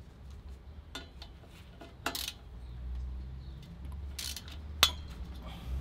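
A few scattered sharp metallic clinks and knocks of tools and car parts being handled, over a low steady hum.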